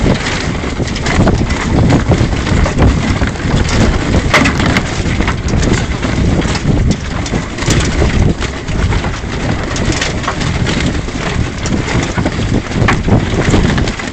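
Wind buffeting the microphone on a sailboat, with a loose sail flapping and a few sharp snaps.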